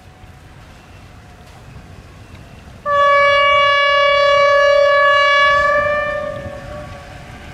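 Horn of a narrow-gauge electric locomotive: one long, steady blast on a single pitch that starts suddenly about three seconds in and fades away over the last second and a half, over a faint low rumble.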